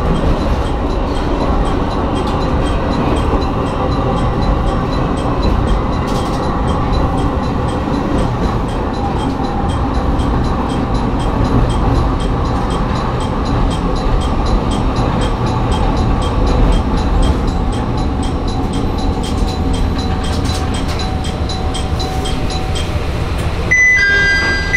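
Diesel railcar running along the line, heard from the driver's cab: a steady engine and wheel rumble with a fast, even ticking. Near the end, a two-note electronic chime sounds.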